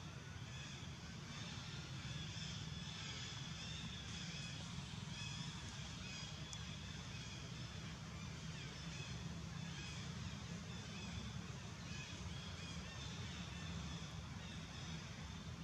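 Outdoor ambience: a steady low rumble with faint, wavering high chirps.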